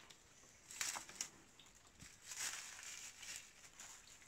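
Faint rustling and crinkling as green onion stalks and leaves are handled and pulled from a bundle, in short bursts about a second in and again around two and a half to three and a half seconds in.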